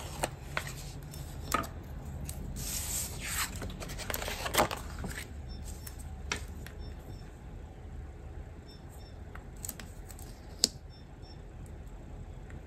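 Paper handling: sticker sheets and planner pages rustling and sliding, and a thin sticker strip being peeled off its backing and pressed down, with small taps and one sharp click about ten and a half seconds in.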